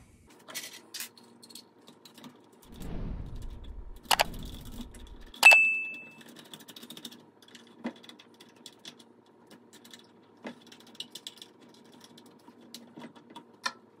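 Small clicks and clinks of the garbage disposal's discharge elbow, gasket and metal collar being handled and fitted to the unit's side outlet, with dull handling bumps about three to five seconds in. The loudest sound is a sharp metallic clink about five and a half seconds in that rings briefly.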